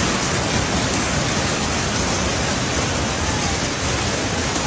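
Hailstones pelting down in a severe hailstorm, a dense, unbroken roar of countless impacts that holds steady throughout.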